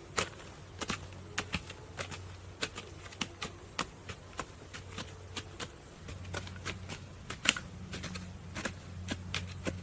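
Irregular sharp clicks and knocks of bamboo and wood being handled, several a second with one louder knock near the end, over a steady low hum.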